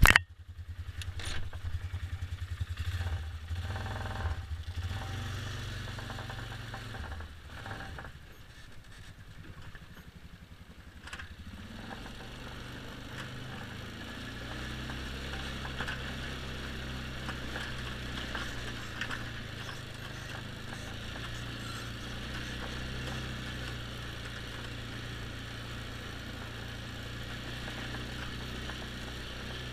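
2007 Polaris X2 ATV engine running, heard from a helmet-mounted camera. Its sound is uneven over the first several seconds and dips quieter about eight seconds in, then it runs steady and even for the rest.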